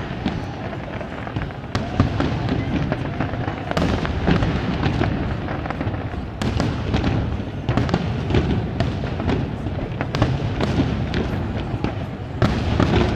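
Fireworks display going off without pause: a dense low rumble of booms with many sharp cracks and crackles on top.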